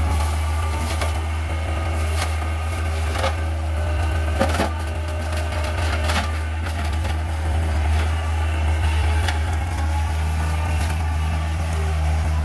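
Kubota excavator's diesel engine running steadily under load, with woody brush cracking and snapping at irregular intervals of about a second as it is cut and broken.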